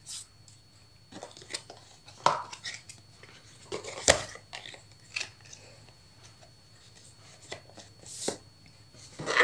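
Plastic makeup jars and compacts being handled and set down on a table, with paper packaging: scattered clicks, taps and rustles, the sharpest about four seconds in.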